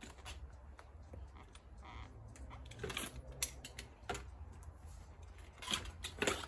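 Scattered clicks and clunks of a 2011 Raleigh Swift folding bike being folded up by hand as its handlebar stem is released and folded down, with the loudest knocks coming close together near the end.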